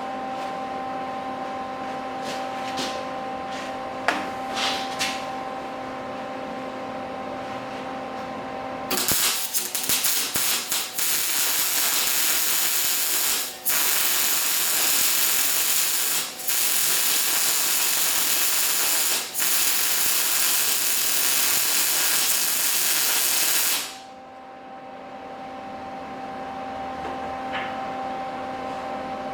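A steady hum, then a welder laying weld: about nine seconds in, a loud, even hiss starts and runs for some fifteen seconds, broken three times for an instant, and stops suddenly, leaving the hum again.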